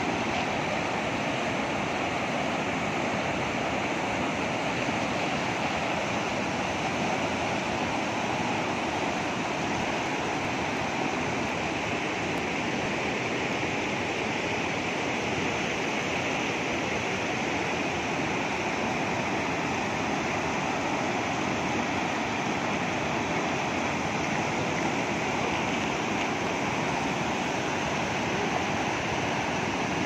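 Muddy water rushing and churning over a low bank of rocks and rubble, a steady, even rush of white water.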